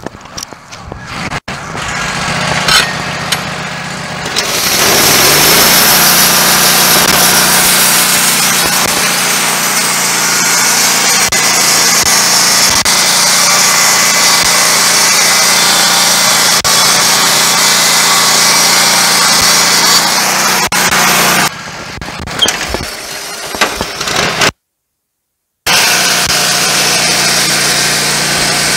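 Petrol engine of a Wood-Mizer LT15 Go portable band sawmill comes up to speed about four seconds in and runs at high speed as the band blade saws along a log: a loud steady engine drone with a strong hiss of cutting. The level drops about 21 seconds in, and the sound cuts out for about a second near the end before coming back.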